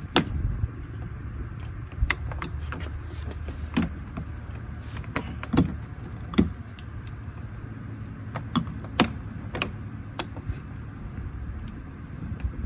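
Metal hinge leaves clicking and clinking irregularly, about a dozen sharp knocks, as a new black six-leaf friction hinge for an RV entry door is handled and test-fitted. A low steady rumble runs underneath.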